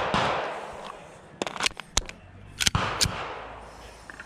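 Gunshots on the shooting range: several sharp cracks and one report whose echo dies away over about a second.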